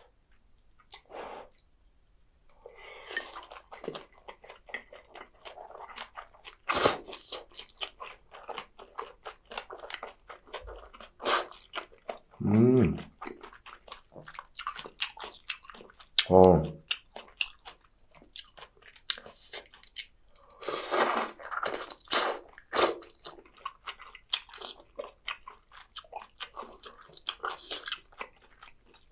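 Close-miked chewing of spicy chicken feet with glass noodles and bean sprouts: wet, chewy mouth sounds with many small clicks and crunches, and a couple of brief low hums.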